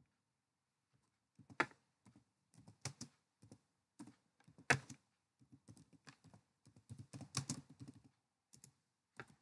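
Quiet typing on a computer keyboard: irregular key presses that start about a second and a half in, a few of them louder than the rest.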